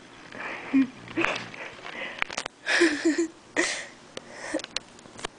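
A sleeping puggle snoring: a series of noisy breaths about a second apart, loudest about three seconds in, with a few sharp clicks in between.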